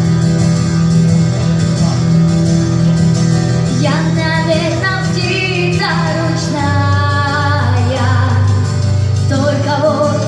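Accompaniment music plays alone, then a female solo voice starts singing the song about four seconds in.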